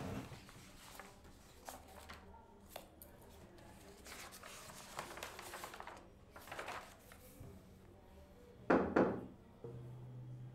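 Faint paper rustling and small clicks as sheets are leafed through at a desk, then a sharp knocking on a wooden door about three-quarters of the way through.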